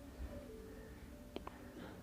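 Quiet background with a faint steady hum and two soft clicks close together about a second and a half in.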